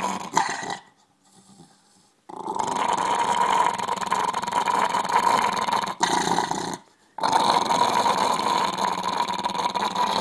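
Jack Russell-type terrier growling in warning with its teeth bared, in long rough spells broken by a pause about a second in and a brief one near seven seconds.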